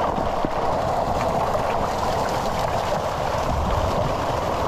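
Milkfish crowded in a harvest net thrashing at the surface: a steady churning splash of water.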